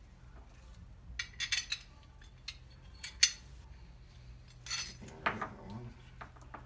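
Small metal hardware, washers and bolts, clinking and rattling as it is handled and fitted onto a steel bracket. There are short jingly clusters, and one sharp click about three seconds in.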